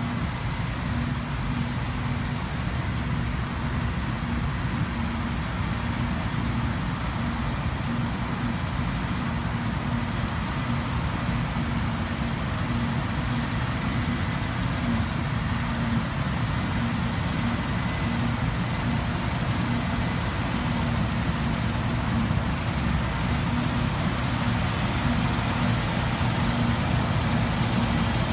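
Claas Lexion combine harvester running steadily while cutting barley: a constant engine and threshing drone with a steady low hum.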